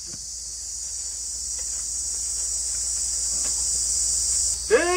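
Insects in the forest chirring in a high, steady drone that grows louder and then drops back near the end.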